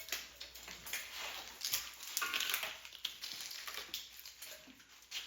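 Irregular plastic clicks, crackles and rustling as the wiring harness is unclipped and pulled off a 5.7 Hemi engine.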